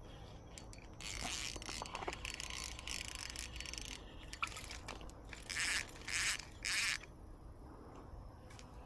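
Rough scraping and rustling as a small bass is reeled in and pulled up through the bankside weeds, with three short, louder rustles near the end.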